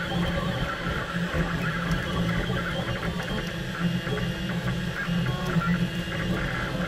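Printrbot Play 3D printer's stepper motors whirring as the print head moves, the pitch changing constantly from one short move to the next.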